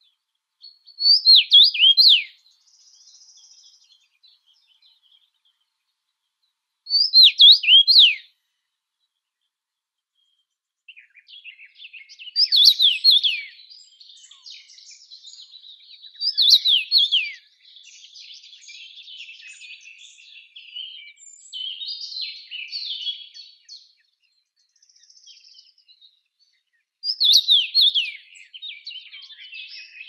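Birdsong: one songbird repeating short, loud phrases of quick descending notes every few seconds, with softer twittering from other birds filling the gaps in the second half.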